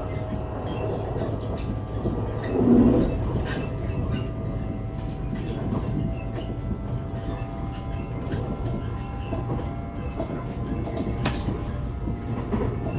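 NS ICNG electric train running, with a steady low rumble and several steady motor tones, and scattered clicks from the wheels on the track. There is a brief louder swell about three seconds in.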